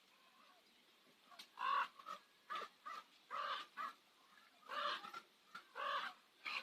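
Common ravens calling: a run of about nine short, harsh calls starting about a second and a half in, some coming in quick pairs.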